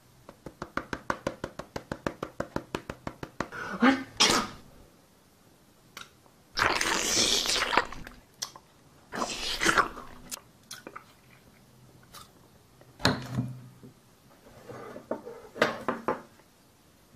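Rapid tapping on a dust-caked filter frame, about six taps a second, knocking the dust loose, then several loud rushing puffs of breath blowing the dust off, with a few scattered clicks.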